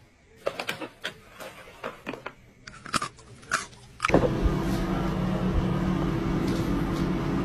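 Sharp, scattered crinkles and clicks of a paper snack packet as a cat bites at it. About four seconds in, a loud, steady droning hum starts abruptly.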